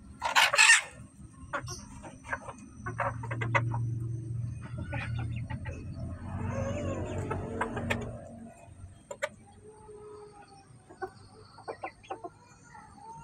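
Bantam chickens clucking softly while pecking at feed, with scattered sharp taps and clicks throughout. A loud rustling burst comes right at the start, and a low steady hum runs through the middle for a few seconds.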